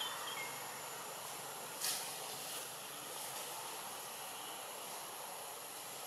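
Outdoor tree-canopy ambience: a steady hiss with a thin high whine, and a single short sharp noise about two seconds in.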